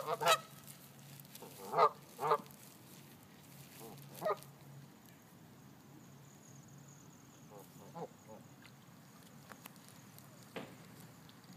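Canada geese honking: four loud honks in the first four seconds or so, then a few fainter calls about eight seconds in.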